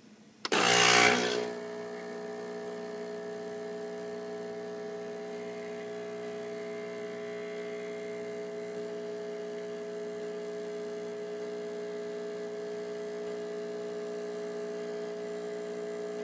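Nespresso Lattissima Plus espresso machine brewing a shot into frothed milk: a brief loud rush about half a second in, then its pump's steady buzzing hum, which cuts off abruptly at the end.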